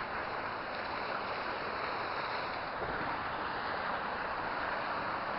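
Steady rushing of a hill burn's running water, an even hiss with no rise or fall.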